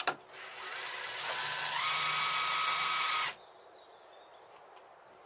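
A small power-tool motor whirs for about three seconds, steps up in pitch about halfway through, then stops abruptly. A sharp click comes right at the start.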